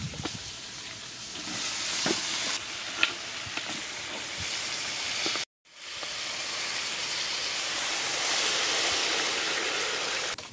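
Steady hissing from a large metal cooking pot as a cow's head is set into it and water is poured in over it, with a few knocks of handling in the first half. The hiss cuts out for a moment about halfway through, then comes back steady until it stops at the end.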